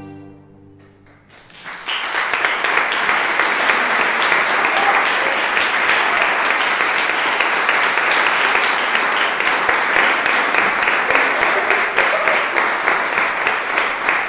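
The last chord of a baroque string ensemble with cellos dies away, then about two seconds in an audience breaks into steady applause that keeps going.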